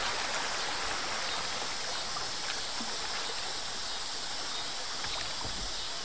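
Shallow river water running steadily over rocks in a riffle, an even hiss of moving water.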